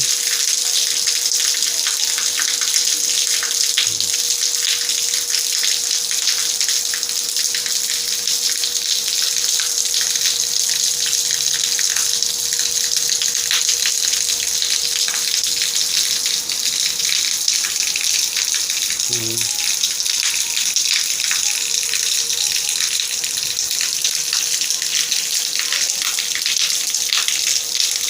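Heavy rain falling steadily: a loud, even hiss of many drops.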